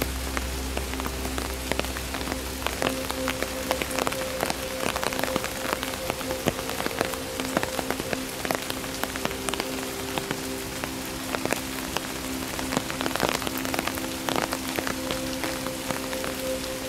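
Steady rain, with many separate drops striking close by in quick, irregular succession. A steady low hum of a few tones sits underneath.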